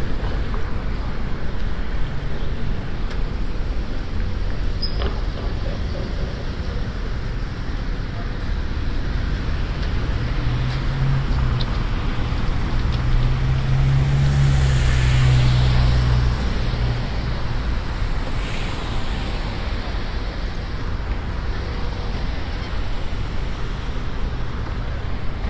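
Steady street traffic noise heard from a moving bicycle, with a truck engine running louder for a few seconds near the middle as the bike passes a parked utility bucket truck.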